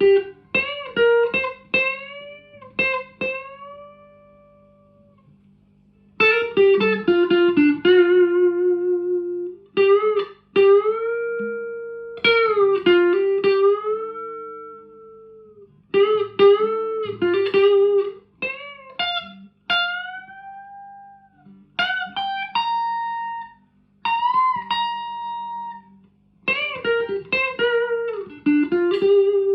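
1983 Squier JV Telecaster played through a 1963 Selmer Thunderbird Fifty valve amp with Celestion Greenback speakers: single-note lead phrases with string bends and vibrato, with a short pause about four seconds in. A faint steady amp hum sits underneath.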